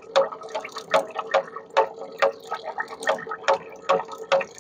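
Swaraj 735 FE tractor's rear-axle gearing, opened up and running in oil, turning as the rear wheel is rotated by hand. It gives a steady run of clicks, about two a second, over a faint steady hum. This is the light noise from the rear wheel that the mechanic is tracing: the axle and bull-pinion bearings have been checked and found sound.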